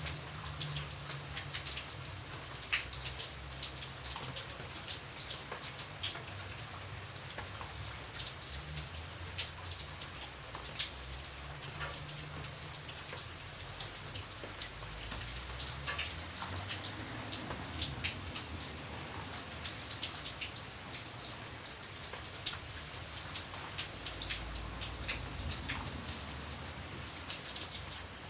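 Light rain falling steadily, with many separate drops ticking sharply on a surface over a soft hiss. An uneven low rumble runs underneath.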